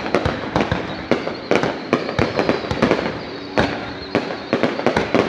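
Fireworks display going off in quick succession: rapid, irregular bangs, about four a second, each with a short echoing tail.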